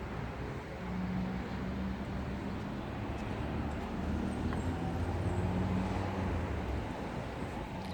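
Steady low vehicle rumble with a humming tone that comes in about a second in and eases off near the end.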